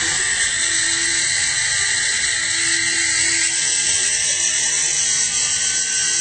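Small RC helicopter's electric motor and rotor blades whirring steadily, a high, even hiss.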